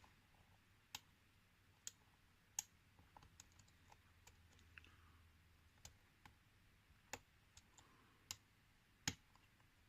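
Faint, irregular light clicks of a medium hook pick working the pin stack of an Asec euro cylinder lock held under tension, about a dozen clicks spread unevenly. The pick is probing for the rearmost, fifth pin.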